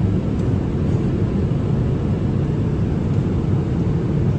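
Airliner cabin noise heard from inside the cabin: a steady, loud, low rumble of the jet engines and airflow.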